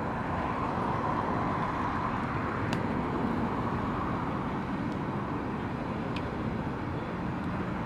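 Open tube-frame kit car driving at low speed, its engine running steadily with tyre noise on the asphalt, with a couple of faint ticks.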